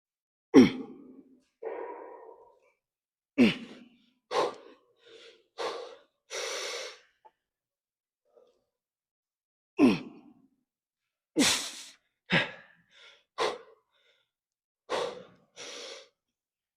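A man breathing hard after heavy leg exercise: over a dozen separate sharp gasps and forceful exhales, several starting with a short voiced grunt that drops in pitch, with gaps of silence between them.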